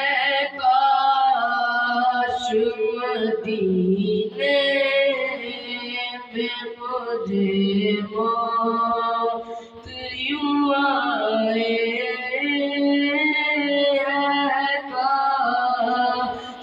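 A boy's voice singing a naat without instruments into a microphone, in long held notes that slide and waver in pitch, with short breaths between phrases.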